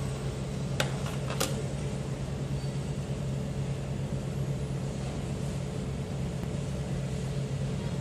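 Steady low hum, with two sharp clicks about a second in, just over half a second apart: button presses on the LED wristbands' wireless remote-control transmitter.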